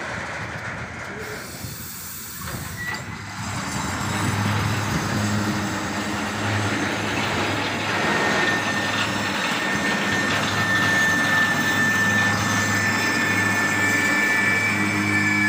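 Rail tank wagons of a fuel train rolling past at close range: a steady rumble and rattle of wheels on the rails that grows louder, with a thin high wheel squeal setting in about halfway through.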